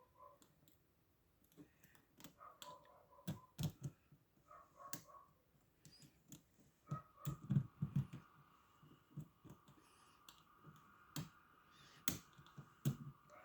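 Lock pick and tensioner working inside an old Russian dual-custody padlock's keyway: faint, irregular metallic clicks and small scrapes as the hook probes and lifts the pins, here struggling to lift one very high-lift pin.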